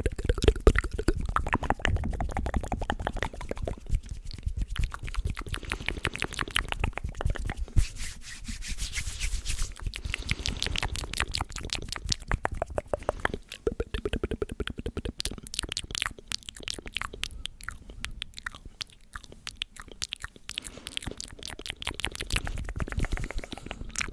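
Close-miked ASMR mouth sounds: a dense, rapid run of lip and tongue clicks and smacks.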